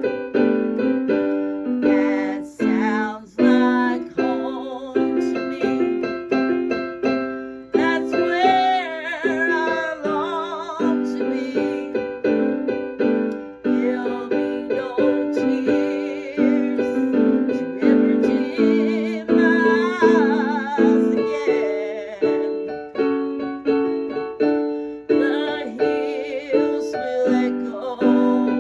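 Piano playing a song with steady, evenly repeated chords.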